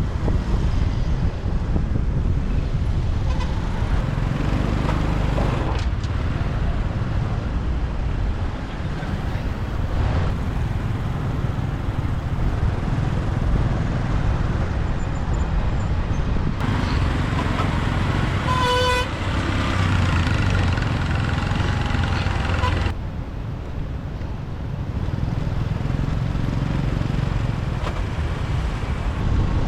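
Busy street traffic heard from a moving motorbike: steady engine and road rumble, with a vehicle horn honking briefly about two-thirds of the way through.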